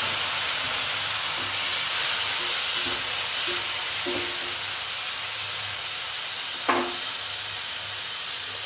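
Water just poured into hot oil in a kadai of frying potatoes and onions, hissing and sizzling as it turns to steam, the hiss slowly dying down. Stirring gives a few light knocks, with one sharper clink of the utensil on the pan about two-thirds of the way through.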